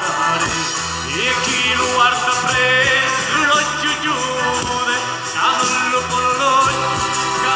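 Live folk band playing a southern Italian folk tune on accordion, acoustic guitars, electric bass and double bass, over a steady rhythmic beat.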